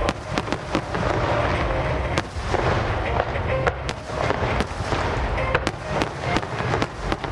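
Fireworks display going off: a rapid string of sharp bangs and crackles, about one to three a second, over a continuous low rumble of distant bursts.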